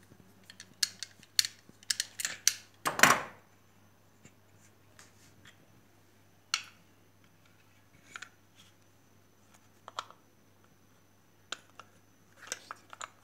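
Plastic parts of a pull-cord onion chopper's lid mechanism clicking and tapping as they are taken apart by hand with a screwdriver: a quick run of sharp clicks early, one louder, longer scrape about three seconds in, then scattered single clicks.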